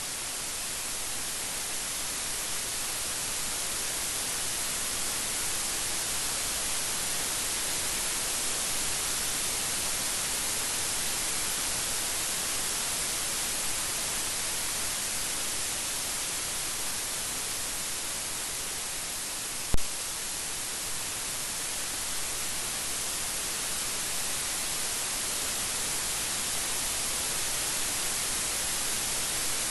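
Steady heavy rain, an even hiss with no thunder rumble. One sharp click stands out about two-thirds of the way through.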